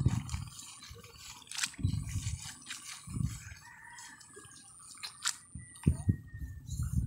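Wet mud squelching and seedling roots tearing as rice seedlings are pried up by hand from a flooded seedbed, in a few short bursts about two, three and six seconds in.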